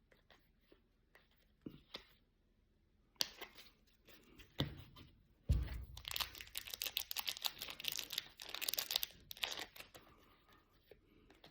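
A trading-card pack wrapper being torn open and crinkled: a few light clicks and a couple of low thumps, then several seconds of dense crackling and tearing that dies away near the end.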